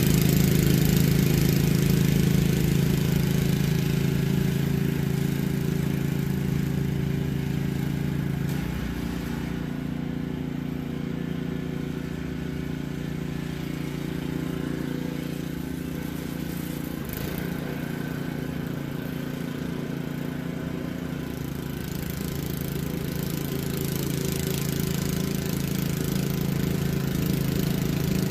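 Snowblower's small engine running steadily, growing quieter through the middle and louder again near the end, with small shifts in pitch along the way.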